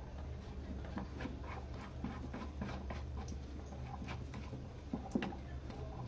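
Irregular light clicks and scrapes of plastic flush-valve parts being handled and fitted inside a toilet cistern, over a steady low hum.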